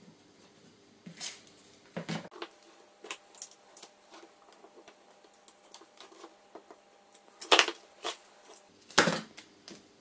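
Handling of paper and adhesive tape strips on a cutting mat: short rustles and crinkles as strips are lifted, peeled and pressed onto card, loudest about 7.5 and 9 seconds in.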